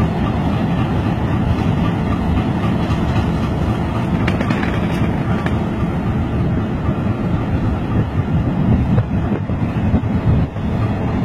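Diesel locomotive engine running at idle, a steady rumble, as the locomotive is slowly turned on a turntable, with wind on the microphone.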